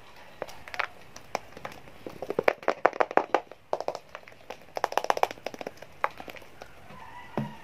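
Fingers and fingernails tapping and clicking on a cardboard iPhone 12 Pro Max box as it is handled, in quick flurries of sharp clicks.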